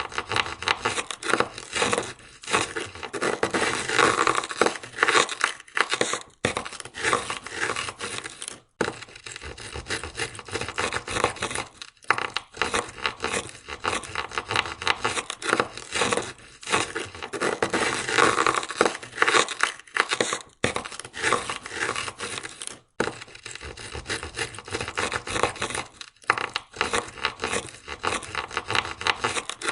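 Ice scraper scraping ice off a car window, with rapid grating strokes in a continuous run broken by a few brief pauses.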